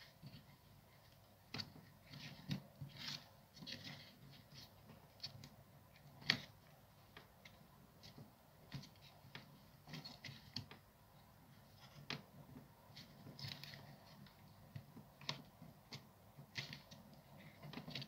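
Faint, scattered clicks and rustles of fingers pressing wires and small plastic parts into the opened plastic housing of a Makita impact driver, with one sharper click about six seconds in.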